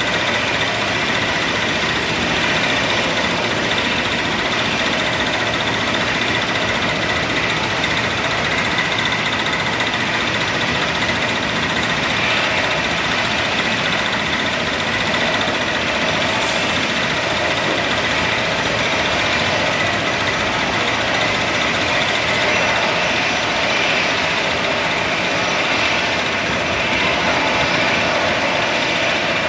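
Jet airliner engines running steadily, a constant rushing noise with a steady whine over it.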